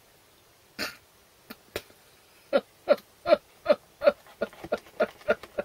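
A woman laughing: a breathy puff, then a run of about ten short pitched "ha" pulses, roughly three a second, fading toward the end.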